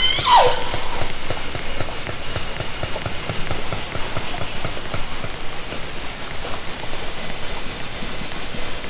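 Hydrophone recording of southern resident killer whales (J and K pods) underwater. One call falls in pitch just after the start, then a long run of irregular echolocation clicks continues over a steady underwater hiss.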